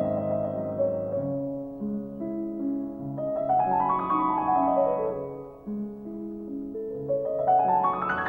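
Solo piano background music: runs of notes climbing to a peak about four seconds in and falling away again, over held low notes, with another climbing run near the end.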